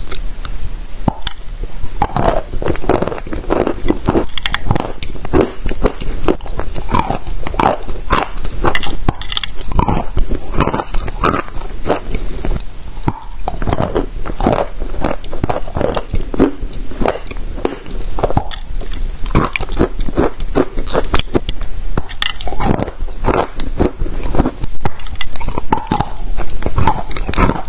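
Chalk being bitten and chewed: a dense run of irregular crunching and crackling.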